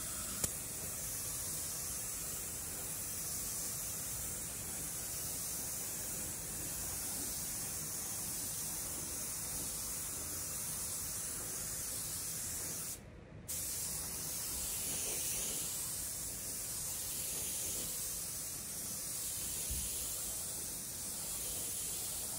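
Gravity-feed Anest Iwata spray gun hissing steadily as compressed air at about 2.4 bar atomises single-stage red paint, laying the light, fast first tack coat. The hiss breaks off briefly about 13 seconds in.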